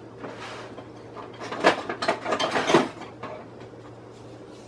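Kitchen utensils being handled, with about a second and a half of clattering and rattling, over a faint steady low hum.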